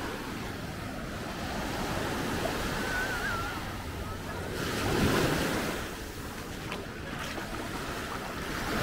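Sea waves washing onto the shore, with two louder swells of surf about four seconds apart, and wind on the microphone.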